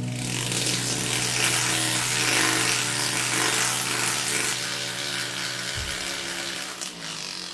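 Jeweller's flex-shaft rotary tool running, its handpiece working a small metal piece with a steady high, hissing whir.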